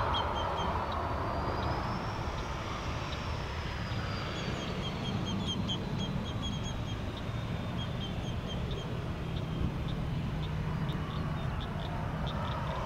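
Twin-engine widebody airliner on final approach, its jet engines a steady low rumble with a faint high whine that rises and falls over the first few seconds. Birds chirp in short repeated high calls over it.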